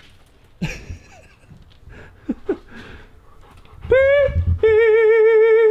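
A high, drawn-out vocal call. It rises and breaks off, then comes back and holds with a fast, even waver for about a second before cutting off abruptly. A few soft knocks and short squeaks come before it.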